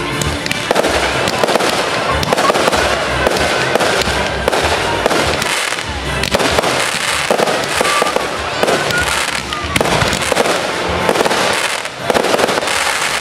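Aerial fireworks going off in a dense, unbroken run of bangs and quick cracks as shells burst overhead.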